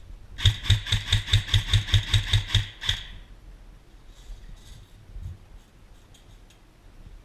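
Airsoft rifle firing a string of about a dozen shots at roughly five a second, starting just after the beginning and stopping about three seconds in. A few fainter scattered clicks follow.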